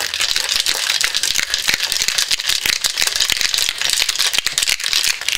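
Ice rattling hard inside a Boston shaker, a mixing glass sealed into a metal tin, shaken vigorously: a fast, continuous rattle of many ice strikes.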